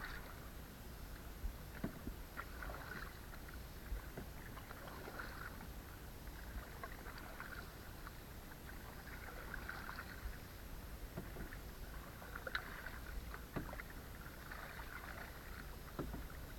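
Canoe drifting on a lake: soft water lapping and trickling along the hull in waves of sound that come and go, with a few faint knocks. A low rumble sits underneath.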